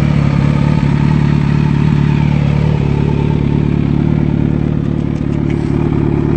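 Kawasaki Z900's inline-four engine running steadily at a constant speed through an aftermarket exhaust.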